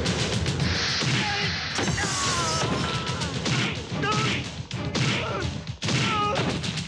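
Film fight sound effects: a rapid run of punches, thuds and crashes with short pained grunts, over a background music score.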